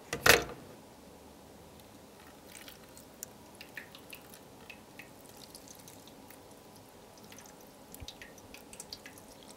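A plastic telephone handset set down on the cradle of a rotary-dial phone with a clunk, then flammable liquid poured from a bottle over the phone's plastic casing, dripping and splashing in scattered small taps.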